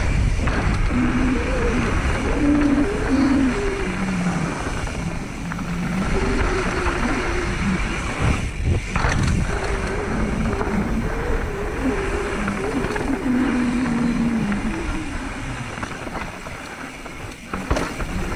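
Mountain bike riding down a dirt trail: steady wind rush on the camera microphone over the rumble and rattle of tyres and bike on rough ground, dipping briefly about halfway and again near the end.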